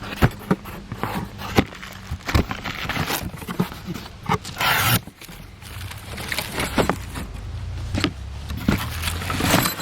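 Cardboard box and packaging being handled and opened: scattered knocks, scrapes and clicks, with a short rustling burst about halfway, over a low steady hum.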